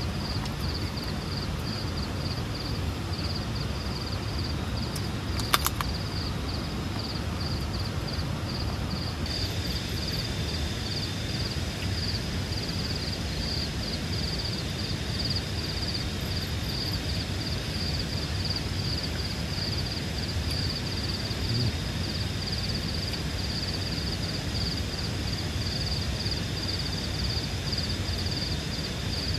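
Tropical forest ambience: an insect chirping in a high, even pulse over a steady hiss, with a single sharp click about five and a half seconds in.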